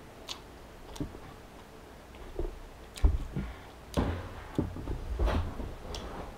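Close-up mouth sounds: lip smacks and sharp little clicks from chewing and finger-licking. About three seconds in come several dull thumps and knocks as a person gets up from a table.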